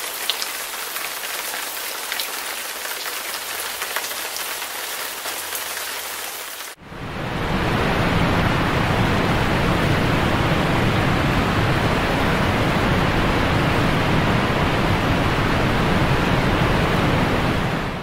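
Rain-swollen brook in flood after heavy rainfall, water rushing steadily. About seven seconds in the sound cuts to a louder, deeper rush.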